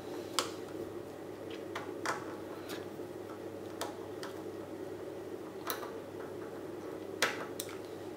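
Small, irregular ticks and clicks of a precision screwdriver turning tiny screws into the plastic inner frame of a Samsung Galaxy S3, with the phone being handled between them, about nine clicks in eight seconds.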